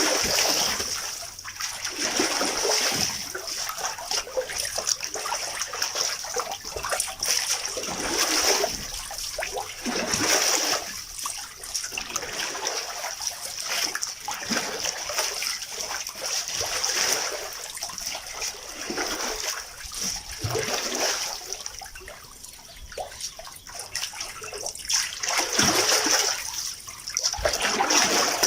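Water sloshing and splashing inside a washing machine, in repeated swells every second or two as the drum turns the load.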